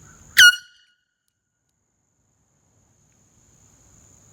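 A single short, loud blast of an air horn near the start: one high note lasting only a fraction of a second before it cuts off.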